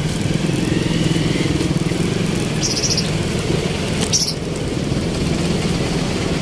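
Street traffic: motorcycle and other vehicle engines running steadily, with two short high-pitched squeaks about two and a half and four seconds in.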